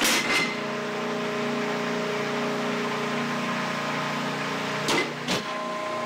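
Hydraulic can-baling press running: a steady motor-and-pump hum with several held tones as the ram compresses metal cans into a block. Sharp metallic knocks come at the start and twice about five seconds in.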